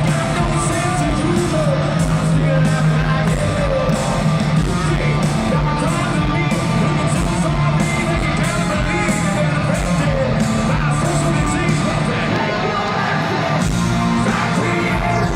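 Live hard rock band playing through an arena PA: distorted guitars, bass and drums, with vocals and crowd noise mixed in, in a large echoing hall.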